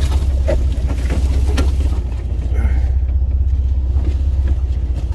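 Low, steady rumble of a 4x4's engine and drivetrain crawling slowly over a dirt and rock trail, heard from inside the cab, with a few sharp knocks in the first two seconds.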